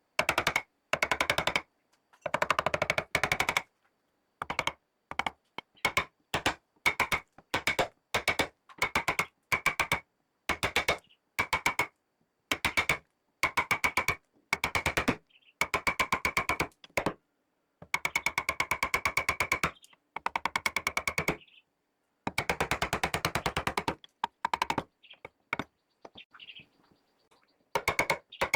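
Power carving tool working wood in many short bursts of very fast clicking chatter with a steady whine, each burst cut off into dead silence before the next.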